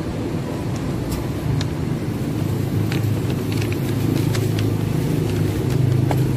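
Steady low rumble of road and engine noise heard from inside a moving car, with a few faint ticks.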